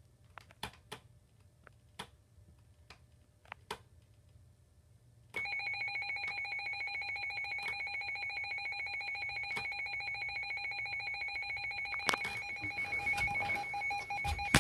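Emergency Alert System attention signal: a steady alert tone that starts suddenly about five seconds in and holds, after a few faint clicks.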